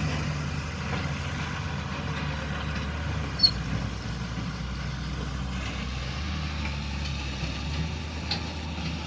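Heavy diesel engine running steadily, with one sharp clank about three and a half seconds in.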